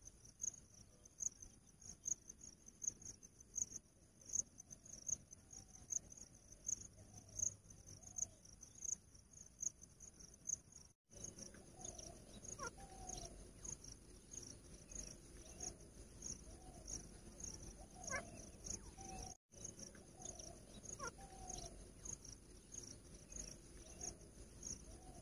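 Cricket chirping steadily, a high, even pulse of about three chirps a second. From about halfway on, caged grey francolins make soft, short falling notes now and then.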